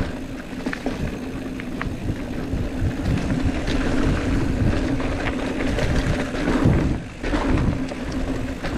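Mountain bike riding down a dirt trail: rumble of wind on the microphone and the tyres on dirt, with the bike rattling over bumps. A steady buzz, typical of the rear hub freewheeling while coasting, breaks off briefly about seven seconds in.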